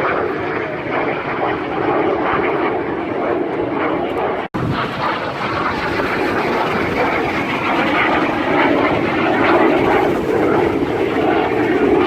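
Fixed-wing aircraft engines running steadily as display planes fly over. The sound drops out for an instant about four and a half seconds in.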